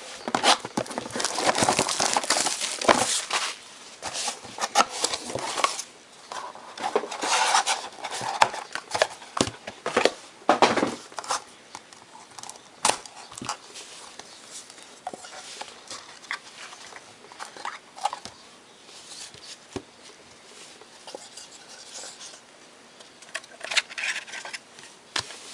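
A sealed trading-card box being unwrapped and opened by hand: crinkling and tearing of wrapping with sharp clicks and rustles, busiest for the first ten seconds or so, then lighter, scattered handling of cardboard and cards.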